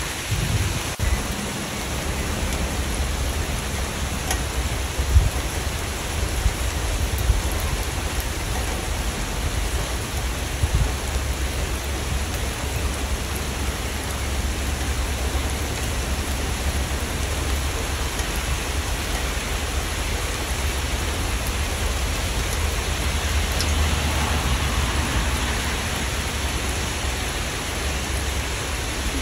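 Steady rain falling: an even hiss with a deep, constant rumble underneath and a few louder drop hits in the first ten seconds or so.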